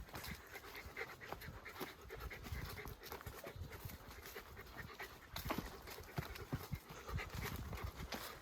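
Steady panting breaths with irregular footsteps on a trail during a downhill walk.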